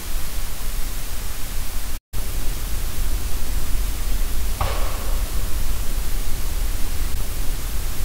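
Heavily boosted night-time field recording from a digital recorder: a steady loud hiss with low rumble, cutting out for an instant about two seconds in. Just past halfway a single short sound rises out of the hiss and falls in pitch.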